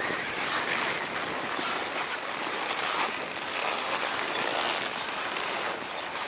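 Skis sliding over groomed piste snow, a steady hiss and scrape with air rushing past.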